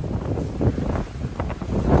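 Strong typhoon wind blowing across the microphone: a low, buffeting rumble of noise that surges and eases in gusts.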